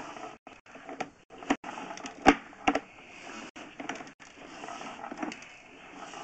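Sewer-scope push cable and reel being worked by hand as the camera is pulled back through the line: irregular clicks and knocks, the loudest a little over two seconds in.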